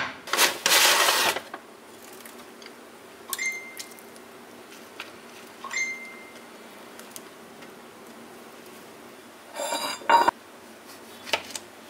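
Kitchen handling sounds on a stone countertop. A paper bag rustles early on, then come two sharp taps with a brief ring a couple of seconds apart as a wooden cutting board and a loaf of bread are set down and handled. Near the end there is another short rustle ending in a knock, and a last light tap.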